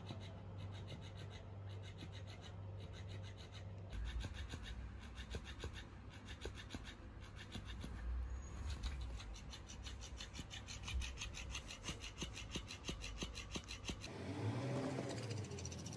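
Electric flopping-fish cat toy wagging in fast, even strokes, its plush body rasping and rubbing against the cloth under it; the flapping stops near the end.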